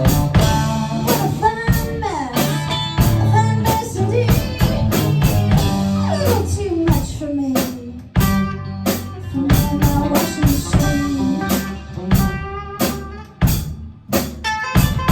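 Live band playing an instrumental passage: guitar with notes sliding up and down over a steady drum kit beat.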